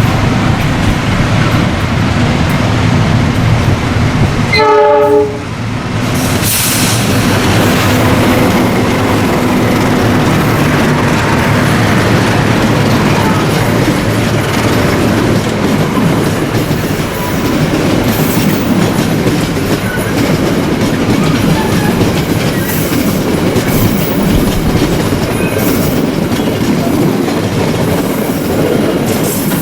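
A long train passing close by: a steady loud rumble and clatter of wagon wheels on the rails. About five seconds in, a short horn blast sounds.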